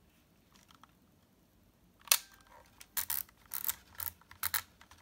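LOMO Compact LC-A 35mm film camera: a sharp shutter click about two seconds in, then the film-advance thumbwheel ratcheting in about five short thumb strokes as the film is wound on, and another shutter click at the very end.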